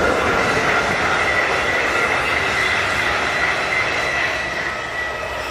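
A regional passenger multiple-unit train passing at speed: steady rolling noise of wheels on rail with a sustained high-pitched whine, easing slightly near the end.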